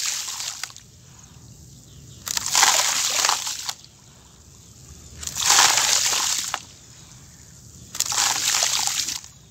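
Dry, gritty mud crumbled by hand and pouring into a tub of water, a hissing, splashing patter in repeated handfuls, each about a second and a half long: three pours plus the end of one at the start.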